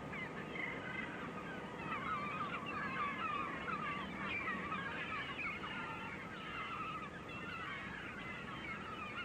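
Many birds calling at once, a continuous chatter of short overlapping chirps and squeals.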